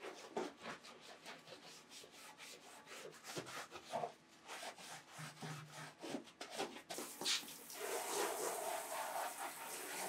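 Gloved hands scrubbing a carved linoleum sheet in a bathtub with quick, repeated rubbing strokes, washing off oil-based relief printing ink with soap. About seven seconds in, a hand-held shower head starts spraying water over the sheet with a steady hiss, rinsing it.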